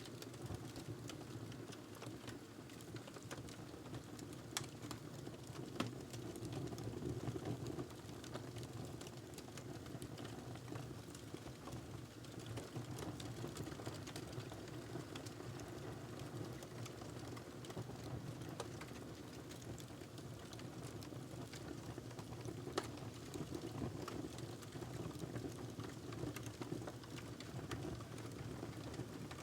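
Wood fire in a fireplace burning with a steady low rumble, crackling with scattered small snaps and a couple of louder pops.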